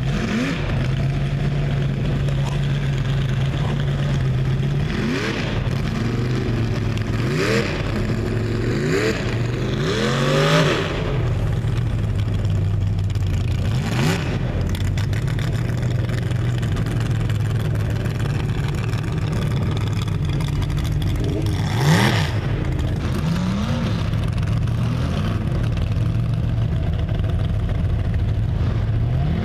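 Off-road vehicle engines revving again and again in rising bursts over a steady low engine drone, with a few louder rushes as the revs peak.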